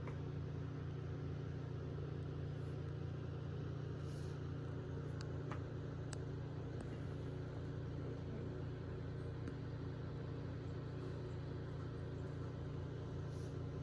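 Steady low hum with a faint, even pitch, unchanging throughout, with a few faint ticks.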